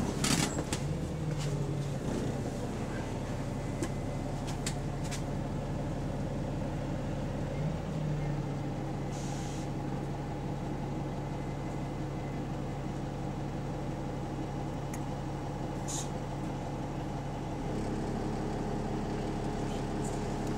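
A bus engine runs steadily, heard from inside the passenger saloon while the bus is moving, as a low hum with a slight rise in pitch about eight seconds in. There is a short hiss just after that and another brief one later, and from about eighteen seconds the engine note gains higher tones.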